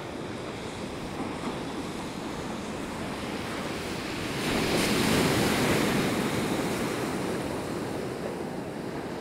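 Heavy ocean surf breaking on a pebble beach: a steady wash of waves, with one bigger wave crashing louder about halfway through and then easing off.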